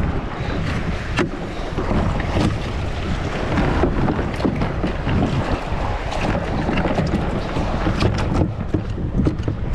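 Choppy waves splashing and slapping against a plastic pedal-drive kayak's hull, with wind buffeting the microphone in a steady low rumble. Scattered short knocks and clicks come from the pedal drive being worked by hand.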